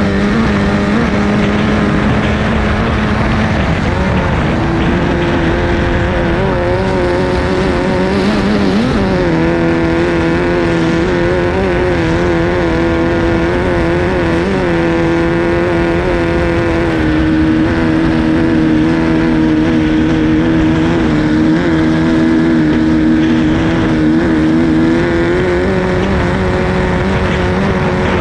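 Onboard sound of a Formula 2500 racing hydroplane's engine running hard, a steady high note. The pitch drops a little about four seconds in, dips and climbs back near nine seconds, settles lower past halfway and rises again near the end.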